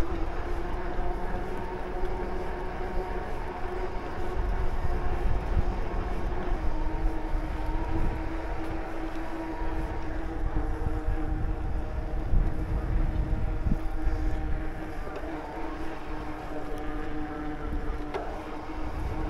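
Electric mountain bike's motor whining steadily under pedal assist over a low rumble of wind and tyres; the whine drops slightly in pitch about six and a half seconds in.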